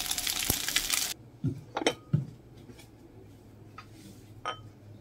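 Longganisa fried rice sizzling in a pan as it is stirred, cutting off abruptly about a second in. A few short clinks and knocks of dishware follow.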